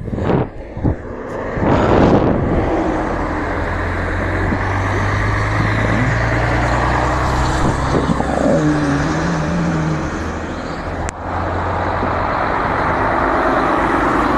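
Highway traffic passing close by: the steady engine and tyre noise of cars and a heavy truck going past, with the truck close near the end.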